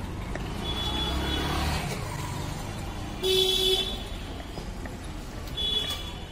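Street traffic: engine rumble, and a vehicle horn honking loudly for about half a second midway, with shorter high-pitched horn or bell tones near the start and near the end. Light knife taps on a wooden chopping board sound underneath.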